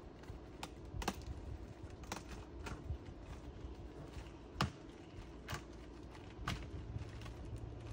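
Scattered, irregular clicks and light knocks of sawmill parts and hardware being handled inside a wooden shipping crate. One knock a bit past the middle is louder than the rest.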